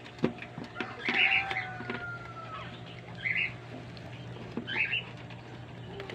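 Newborn Persian kitten mewing: three short, high, thin cries, about a second, three seconds and nearly five seconds in, with small clicks and knocks between them.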